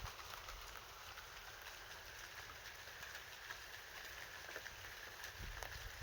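Steady rain with scattered drops tapping on a car.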